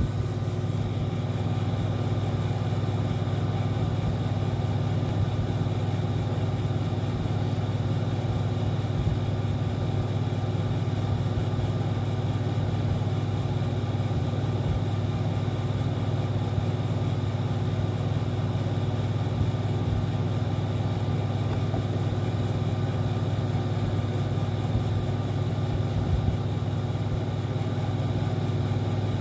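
Air conditioner running: a steady low hum with a few faint, steady tones above it, never changing in level.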